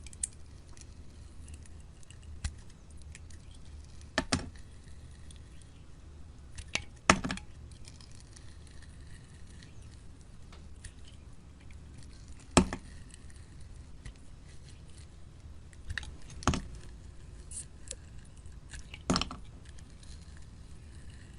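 Knife chopping through bars of soap: about seven short, crisp cuts at uneven intervals of a few seconds, over a steady low hum.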